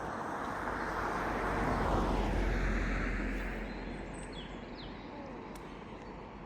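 A rushing noise, likely a vehicle passing, swells to its loudest about two seconds in and slowly fades away. A few faint bird chirps come near the middle.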